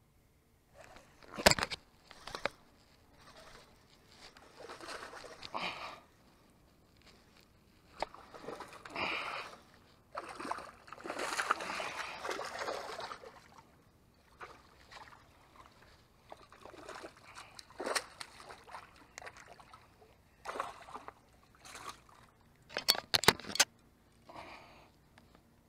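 A hooked bass splashing and thrashing at the water's surface in several bursts, the longest a couple of seconds long, mixed with sharp clicks and knocks from handling the baitcasting rod and reel; the loudest clicks come about a second and a half in and again near the end.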